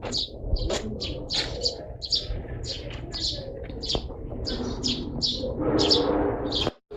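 Eurasian tree sparrows chirping in quick, short repeated chirps, about three a second, over a steady low background rumble. The sound cuts out briefly just before the end.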